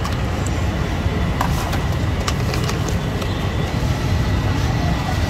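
Steady low rumble of street background noise, with a few short clicks and clinks of a metal ladle against plastic takeaway bowls.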